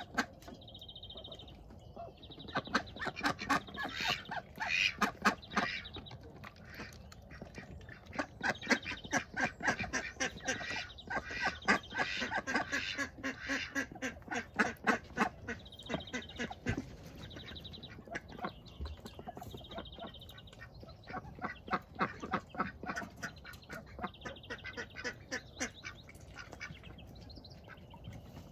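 Ducks quacking and chattering in quick runs of short calls, coming in several clusters with brief lulls between.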